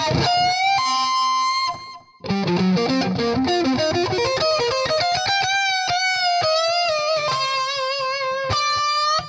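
Electric guitar with an overdriven tone playing a C minor blues lick: held two-note bends at first, a brief break about two seconds in, then a fast run of notes, ending on held bent notes with wide vibrato.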